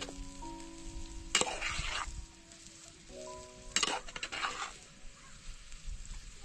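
Soft background music with long held notes, broken by two short bursts of noise, about one and a half and four seconds in.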